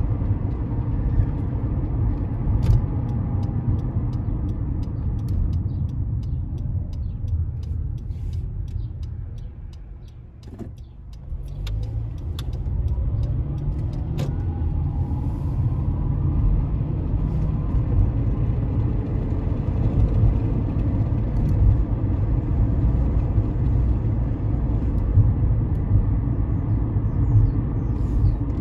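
Road and engine noise inside a Honda CR-V's cabin while driving: a steady low rumble that falls away as the car slows about ten seconds in, then builds again with a rising engine note as it pulls away and speeds up. Faint ticks run through the first half.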